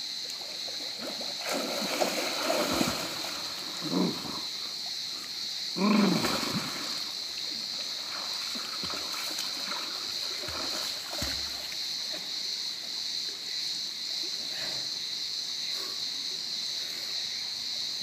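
Water splashing from a person swimming breaststroke-style in a rock pool, in a few irregular louder splashes over a steady hiss of flowing water and a constant high-pitched drone.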